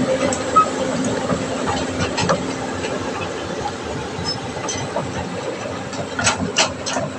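Caterpillar 320D hydraulic excavator's diesel engine running steadily, with a few short sharp knocks near the end.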